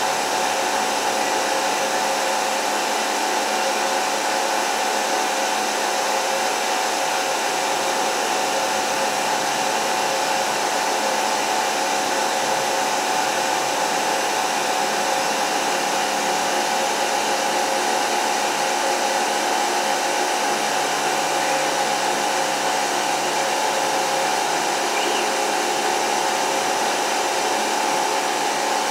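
Denford Orac CNC lathe running its program, the spindle turning at about 2,150 rpm with a steady motor whine.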